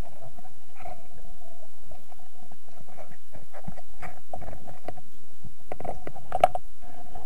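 Underwater sound through a camera housing: a steady muffled rumble with irregular knocks and clicks as a gloved hand and an octopus hook work among rocks, the sharpest knock about six seconds in.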